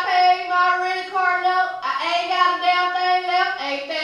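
A woman singing in long held notes, two sustained notes with a short break between them, then shorter, lower notes near the end.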